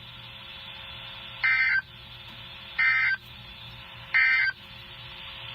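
Emergency Alert System end-of-message data burst: three short, identical digital squawks just over a second apart, signalling the close of the alert. Under them runs a faint steady broadcast hiss and hum.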